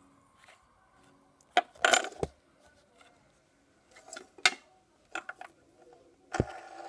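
Metal fidget spinner clicking and clattering against a hard tabletop as it is set down, spun and picked up: a cluster of sharp knocks about two seconds in, more around the middle, and a few quick ones near the end.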